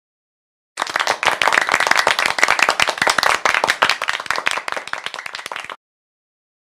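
Applause: many hands clapping densely for about five seconds, starting suddenly about a second in and cutting off abruptly.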